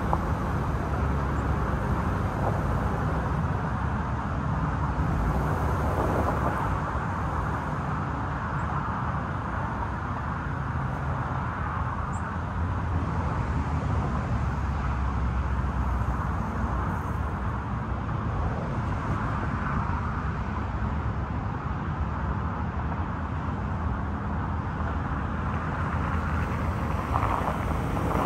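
A 2018 Subaru Outback driving slowly down a gravel track: a steady low rumble of its boxer engine and tyres, with gravel crunching near the end as it pulls up close.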